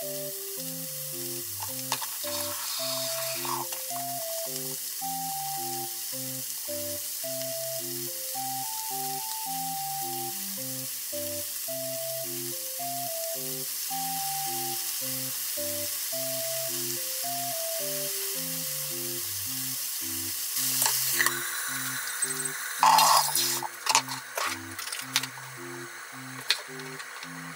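Chicken and leek pieces sizzling steadily as they fry in a frying pan. Near the end there is a louder burst of sizzling and clatter, and after it the sizzle is quieter under the pan's glass lid, with a few light clicks.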